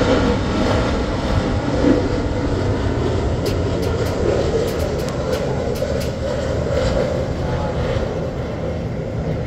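Twin-engine jet airliner on final approach with its landing gear down: a steady engine rumble that eases slightly near the end.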